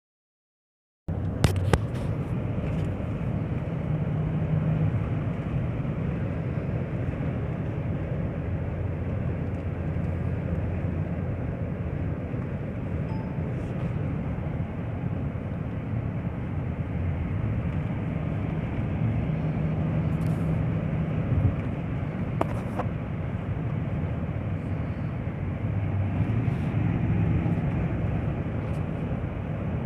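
Car being driven on a road test for an engine misfire: steady engine and road rumble, with a few sharp clicks near the start and again past the middle.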